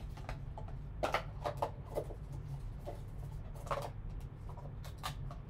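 Empty cardboard trading-card box handled with gloved hands and closed up: scattered rustling, scraping and light taps of cardboard, busiest about a second in and again near the end, over a steady low hum.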